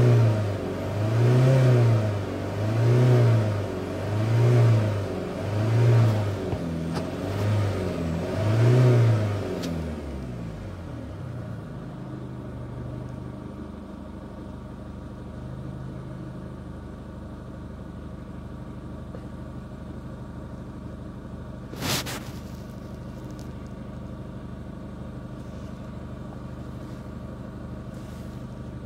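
Chevrolet Captiva's diesel engine revved in quick blips about every second and a half, seven times, then dropping back to a steady idle. The revs are raising the exhaust gas temperature for a test of the exhaust temperature sensor. A single short sharp click sounds about 22 seconds in.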